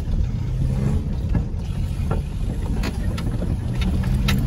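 Car engine and road noise heard from inside the cabin while driving: a steady low rumble, with a few sharp clicks or rattles.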